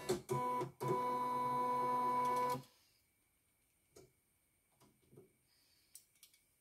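A CNY home embroidery machine running briefly: a few short starts, then a steady motor whine for about two seconds that stops abruptly. After it, faint clicks of a screwdriver at the needle plate.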